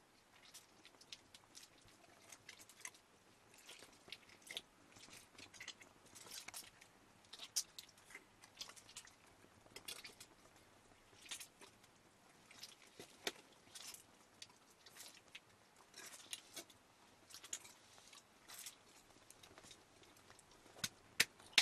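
Stiff hide sack crinkling and rustling as it is held open and packed with lumps pressed in by hand: irregular soft crackles and ticks, with one slightly louder snap about seven seconds in.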